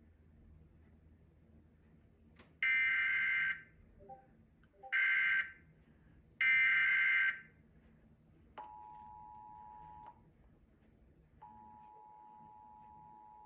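Emergency Alert System SAME header: three data bursts of about a second each, the buzzing two-tone digital code that opens an alert, here a Required Monthly Test. Then the EAS two-tone attention signal, a steady dual tone, sounds for about a second and a half, breaks off, and starts again near the end.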